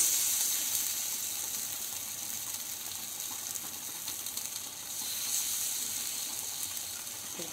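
Masala-coated fish steaks sizzling on a hot iron dosa tawa, laid on the dry pan before any oil is added. A steady hiss that swells as each piece goes down, at the start and again about five seconds in.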